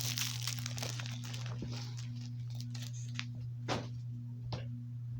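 Plastic shrink-wrap crinkling and crumpling as it is handled, dense at first and thinning out after about two seconds, followed by a few scattered clicks. A steady low electrical hum runs underneath.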